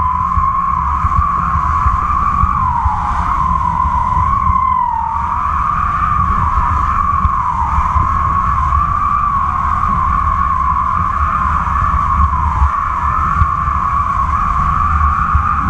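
Wind buffeting a camera on a kite's flying lines, with a steady whistling tone that wavers slowly in pitch as the taut kite line hums in the wind.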